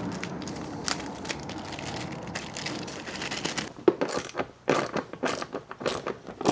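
Rustling and handling noise, then from about four seconds in a run of sharp clicks and clinks from small metal parts being handled: the quick-release seat bolts and tools.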